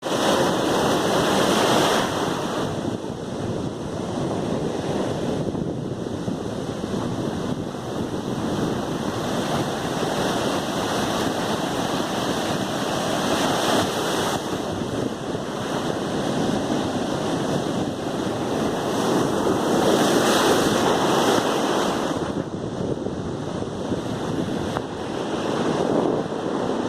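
Sea surf: waves breaking and washing in as a steady rush of noise. It swells louder now and then, most strongly near the start and again about twenty seconds in.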